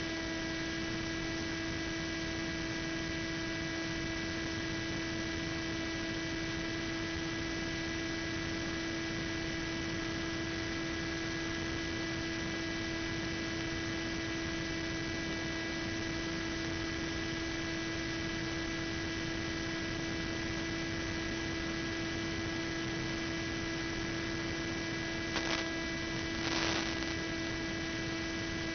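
Steady electrical hum and hiss from an analog FPV video link's audio channel, with several constant tones that do not change pitch. Two brief crackles come near the end.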